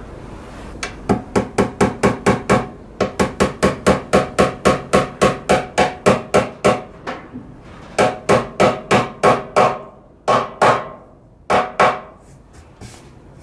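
A small hammer tapping a round brass badge into a wooden toy box: quick light taps, about five a second, in three runs, followed by a few separate, spaced-out blows near the end.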